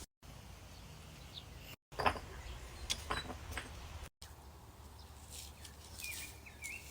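Outdoor ambience broken by abrupt edit cuts: a steady low wind rumble on the microphone, a few sharp clicks about two to three and a half seconds in, and a bird chirping a few quick rising notes near the end.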